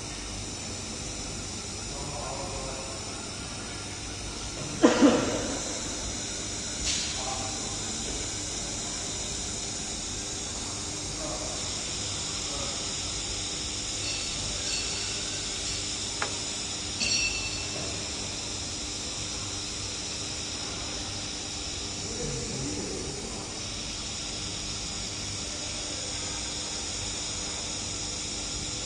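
Steady hiss from a robotic laser welding head running a weld along a seam in a metal plate. A sharp knock about five seconds in, with smaller clicks near seven and seventeen seconds, and faint voices in the background.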